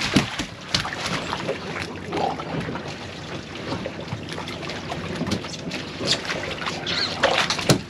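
Steady wind on the microphone and water lapping against a boat's hull at sea, with a few faint knocks.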